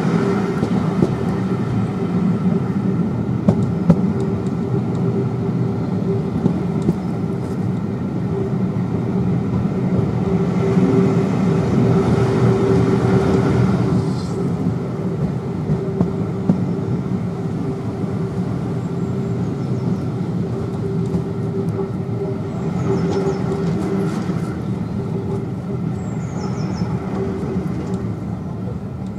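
Steady rumble and rattle of a steam-hauled passenger train's carriage running along the rails, swelling with extra hiss for a few seconds near the middle and dropping back suddenly.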